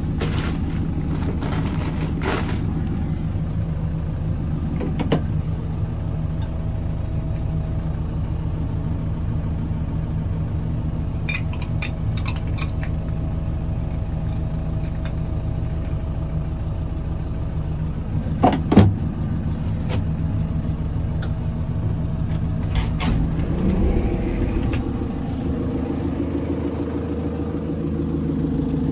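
JCB 4CX backhoe loader's diesel engine idling steadily, heard from inside the cab, with scattered clicks and knocks. The loudest is a pair of knocks about two-thirds of the way through.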